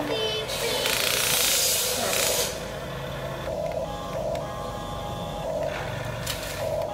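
Huina RC toy excavator's electric gear motors whining in on-off spells as the arm swings and lifts. Near the start there is a rushing hiss for about two seconds as the bucket scrapes through sand.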